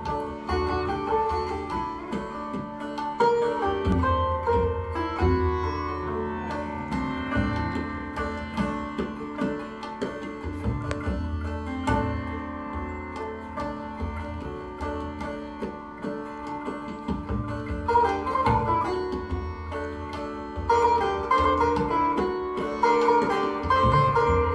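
Sitar playing a melody in a Hindustani classical piece set to teentaal, over a steady tanpura drone. Tabla accompanies with low bayan strokes and higher dayan strokes.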